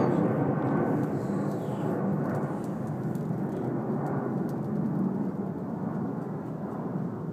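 Steady low rumble of distant engine noise, slowly fading.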